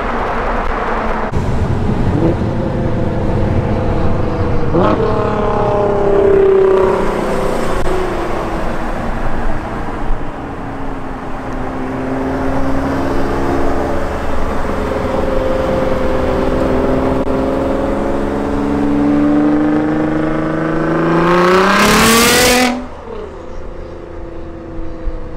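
Nissan GT-R R35's twin-turbo V6 with a Fi valvetronic cat-back exhaust and catless downpipes, accelerating hard through the gears. The engine note climbs with each pull and drops at each shift. Near the end comes a long rising pull that cuts off sharply.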